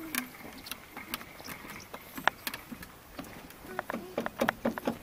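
Footsteps on the planks of a wooden jetty: irregular knocks, sparse at first and coming quicker and louder over the last second or so.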